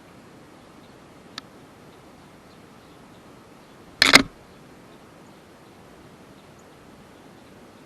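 A faint tick, then a couple of seconds later a single short, loud clatter or knock, over a steady quiet background hiss.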